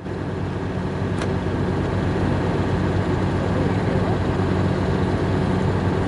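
Vehicle engine idling steadily, heard from inside the cab, a constant low hum.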